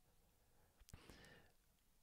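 Near silence with room tone, broken about a second in by a faint mouth click and a soft breath lasting about half a second.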